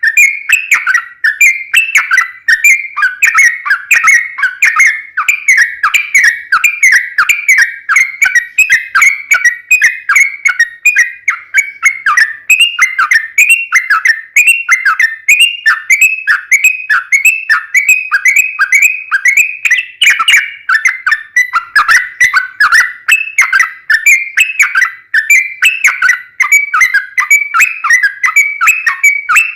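Yellow-vented bulbul (trucukan) singing a long, unbroken run of quick whistled notes, several a second.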